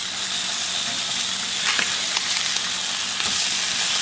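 Tilapia fillets sizzling steadily in hot oil in a nonstick frying pan, with a few light scrapes and taps of a plastic slotted spatula as the fillets are turned over.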